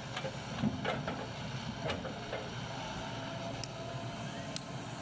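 Excavator's diesel engine running steadily, with several short sharp knocks.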